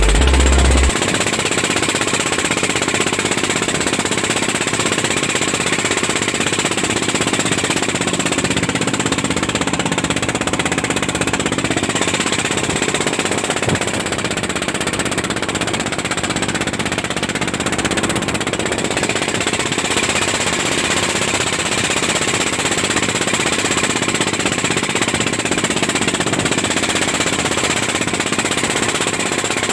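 Pompong boat's inboard diesel engine running steadily under way, with a rapid, even beat.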